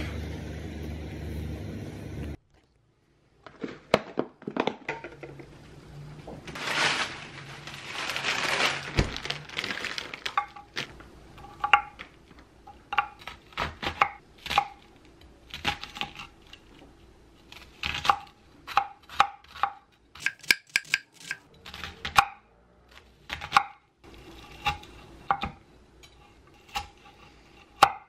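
Kitchen knife cutting onion and then broccoli on a wooden cutting board: irregular knocks of the blade on the board, often several in quick succession, with short pauses between. Before that comes about two seconds of steady outdoor background noise that cuts off abruptly.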